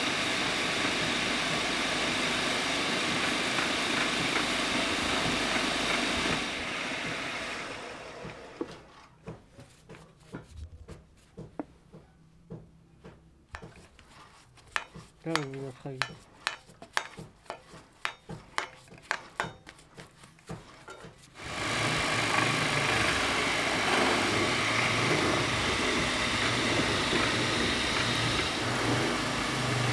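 Wood lathe running steadily, fading out about seven seconds in; a quiet stretch with scattered clicks and taps follows, then the lathe's steady running sound comes back abruptly about 21 seconds in.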